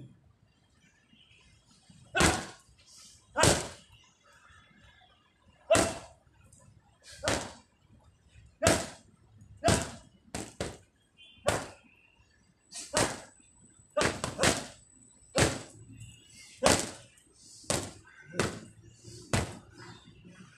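Boxing-glove punches landing, about twenty sharp smacks in a run, singly and now and then in quick pairs, roughly a second apart.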